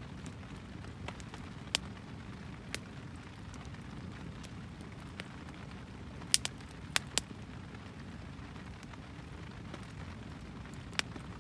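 Steady hard rain on a plastic-sheeted shelter and a wood fire burning, with about seven sharp pops from the fire, four of them close together about six to seven seconds in.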